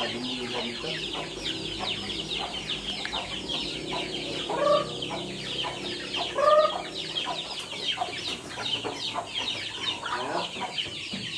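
A flock of native chickens: many chicks peeping thickly without pause, with two louder clucking calls from adult birds about four and a half and six and a half seconds in, and another near the end.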